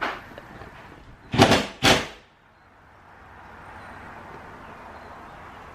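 Wallpaper being ripped off a wall in two quick tearing pulls about half a second apart, followed by a faint steady hiss.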